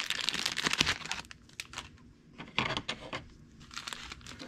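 Thin clear plastic parts bag crinkling and rustling as it is handled, densest in the first second, then softer separate crackles.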